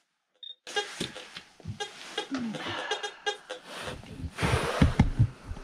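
Metal-detecting pinpointer sounding in short repeated tones while held over a dug-up nail. In the last second and a half there is louder rustling and knocking from handling.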